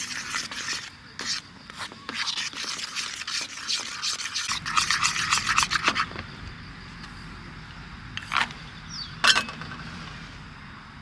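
Quick repeated scraping strokes, like a cooking utensil worked against a pan or bowl, for about the first half, then two sharp clinks.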